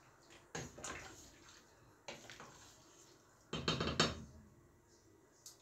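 Metal kitchenware clinking and knocking against a stainless-steel cooking pot on the stove: a few separate sharp knocks, the loudest cluster a little past the middle.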